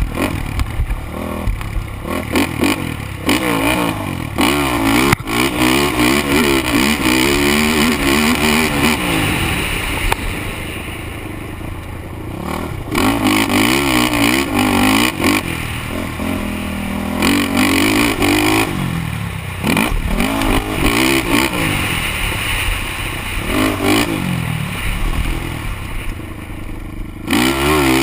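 Single-cylinder 450cc four-stroke sport quad engine, heard on board, revving hard through the gears. Its note climbs and drops again and again with the throttle, backing off for a few seconds about ten seconds in and again shortly before the end.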